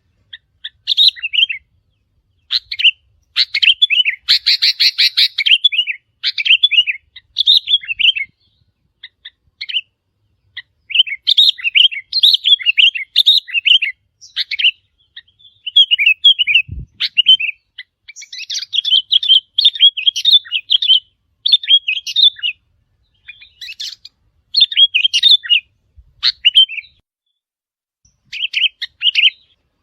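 Sooty-headed bulbul calling: short, quick chirping phrases, repeated in bursts with brief pauses between them.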